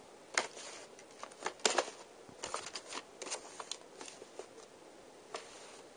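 Paper and packaging being handled and sorted by hand, rustling and crinkling in irregular short crackles.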